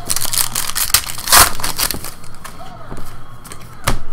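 A foil trading-card pack being torn open and crinkled, loudest about a second and a half in, then a few sharp clicks as the cards are handled.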